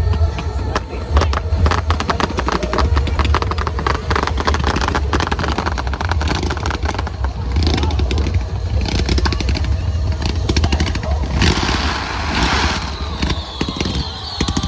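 Fireworks crackling in dense rapid bursts over a continuous low rumble, with a louder hissing crackle about twelve seconds in.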